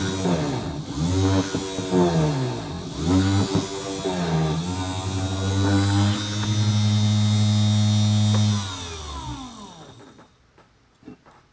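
Small DC motor of a mini drill press drilling into a wood block, its speed sagging and recovering several times as the bit loads up. It then runs steadily for a few seconds before being switched off and winding down, with a few faint knocks after it stops.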